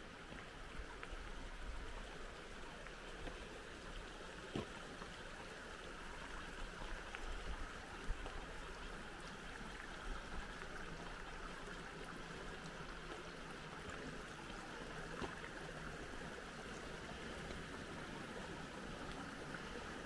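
Creek water rushing steadily, with a low wind rumble on the microphone and a few faint clicks.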